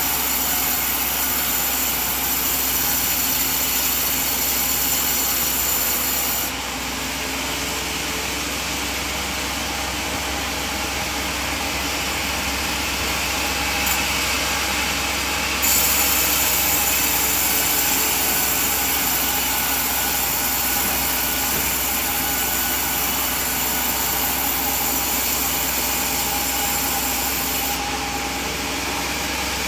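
Sawmill machinery running steadily while sawing a coconut log. The noise is louder and hissier for the first few seconds and again from about halfway to near the end, and a little quieter in between.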